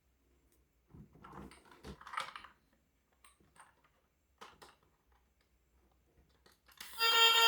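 Scattered light clicks and rustling, as of objects being handled, busiest about a second in. Music starts just before the end.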